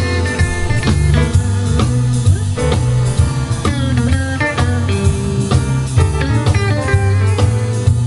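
Live band playing a blues-rock tune: upright bass and drum kit under a guitar lead line with bent notes.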